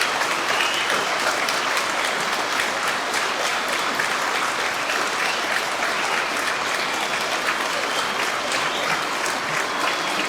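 A large crowd applauding steadily after a speech ends, many hands clapping at once.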